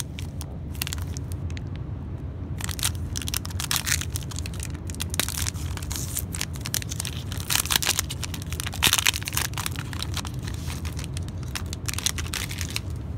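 Wrapper of a Panini Contenders football card pack crinkling and tearing as it is ripped open by hand and the cards are pulled out. The crackly rustles come in clusters and are loudest about eight or nine seconds in.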